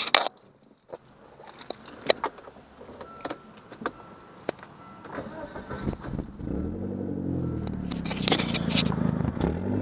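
Keys jangling and a few clicks, then about six seconds in a Volvo car's engine starts and keeps running, its pitch rising and falling as it is revved.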